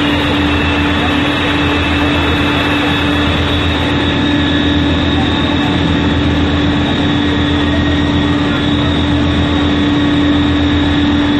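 Loud, steady drone of firefighting machinery working a fire that is still burning: engines running with a constant hum over an even rushing noise.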